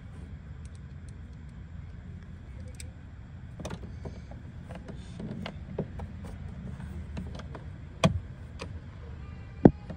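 Car idling with a steady low hum, scattered light clicks, and two sharper knocks near the end.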